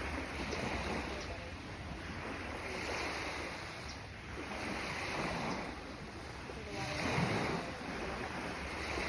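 Sea water splashing and washing in surges about every two seconds, with wind rumbling on the microphone.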